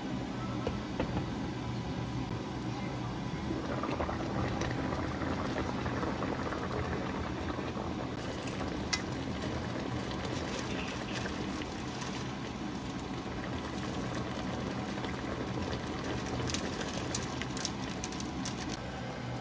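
Spicy fish braise boiling in a frying pan, bubbling steadily, with many small pops and crackles through the second half.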